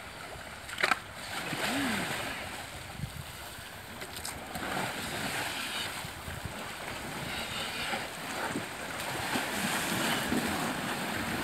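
Water splashing and churning in surging bursts as two hippos fight in the shallows, with one sharp knock about a second in.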